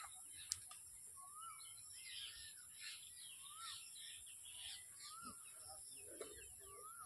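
Birds calling: one bird repeats a short rising-and-falling whistle about every second and a half, with other faint chirps around it. A steady high-pitched hiss runs underneath, and there is a single sharp tick about half a second in.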